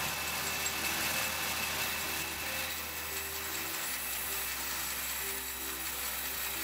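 Band saw cutting through a wooden floor timber: a steady hiss of the blade running through the wood. Background music plays along with it.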